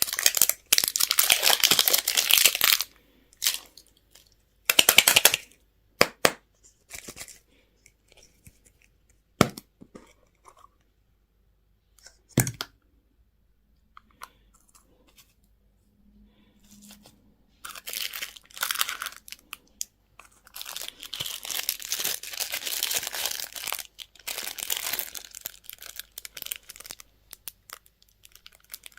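Candy and toy packaging being torn open and crinkled by hand, in bursts of rustling and tearing. There are scattered clicks and a dull knock in the middle, with a quiet stretch before the crinkling picks up again for several seconds near the end.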